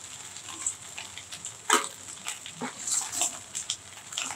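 Oil sizzling in a steel kadai while fried goat brain pieces are scooped out with a slotted steel spoon. Several short sharp clinks and scrapes of the spoon against the pan; the loudest comes a little under two seconds in.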